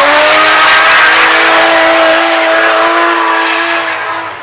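Drift car's engine held at high revs in one steady note while the car slides with its rear tyres spinning, over a loud hiss of tyre noise. It fades a little near the end.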